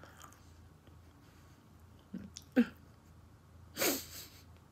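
A woman's short sounds while eating, not speech: a brief grunt about two seconds in, then a sharp, noisy burst of breath forced out through the nose, like a snort or sneeze, near the end.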